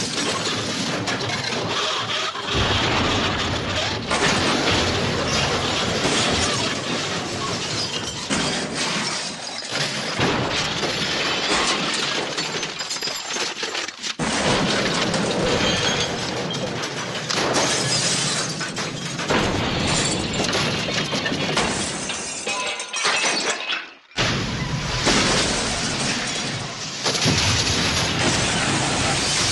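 A string of cartoon-style crash and smash sound effects, glass shattering and things breaking, cut one after another, with a brief gap about three-quarters of the way through.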